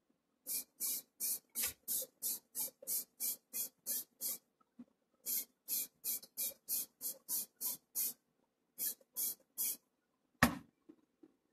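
Grey primer being sprayed onto model parts in short hissing bursts, about three a second, in three runs with brief pauses between them. A single sharp knock follows near the end.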